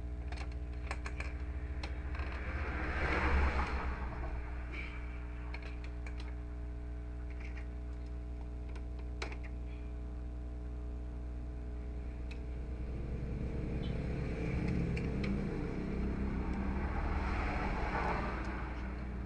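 Scattered light clicks and taps of small plastic printer parts being handled and detached, over a steady low hum. A rushing swell rises about three seconds in and again for several seconds near the end.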